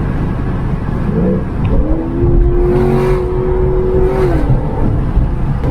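Chevrolet SS's LS3 V8 with a Livernois Stage 2C camshaft, running with a deep rumble: the engine note climbs about a second in, holds steady for a couple of seconds, then drops off.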